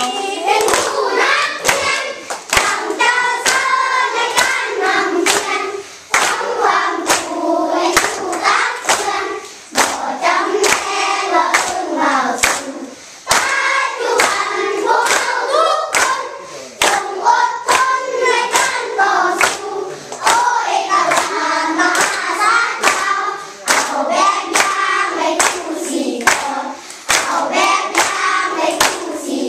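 A group of people singing a song together while clapping their hands in a steady rhythm, with brief breaks between lines.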